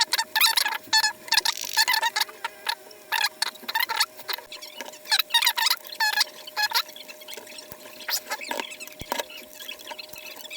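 Cloth rubbing over a clear plastic clock cover to clean it, squeaking in quick, irregular strokes. The strokes come fast at first and thin out to a few near the end, over a faint steady hum.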